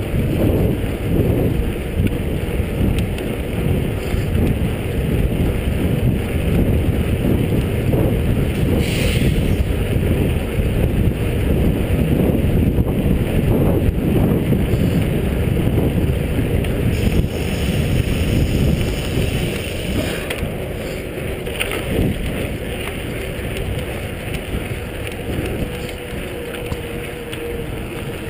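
Wind buffeting the camera microphone of a mountain bike riding at speed on pavement: a steady low rumbling rush that eases somewhat over the last few seconds.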